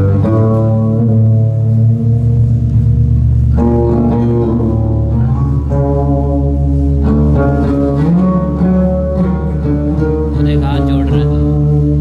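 Live fusion-rock band music: an electric guitar picking a melodic line over a steady deep bass, with the notes changing every second or so and a short upward bend in pitch near the end.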